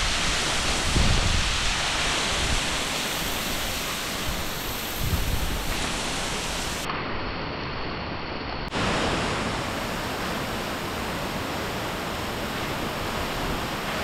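Waterfall's steady rushing water, with wind buffeting the microphone in low gusts during the first few seconds. The hiss turns briefly dull for about two seconds near the middle.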